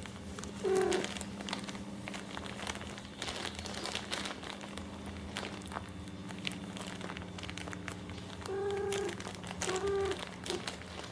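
Crinkling and rustling throughout, as of paper or plastic being played with, over a steady low hum. A cat gives short high mews once about a second in and three times near the end.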